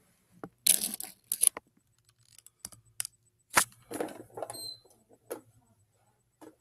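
Plastic toy garbage bins and a toy garbage truck handled by hand: a string of separate small plastic clicks and knocks with short crackly rustles, the sharpest click a little past halfway, and a brief high squeak soon after.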